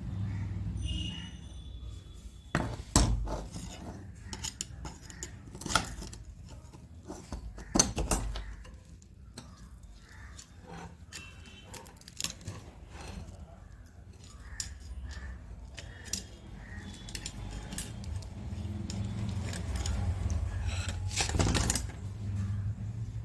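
Scattered metal clinks and knocks from tools and rotary hammer drill parts being handled while freeing a stuck drill bit. A steady low rumble runs underneath.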